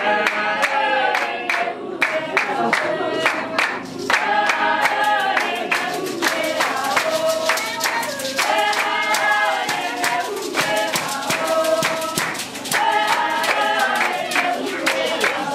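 A group singing a Basarwa (San) dance song in chorus, with hand claps keeping a quick, steady beat.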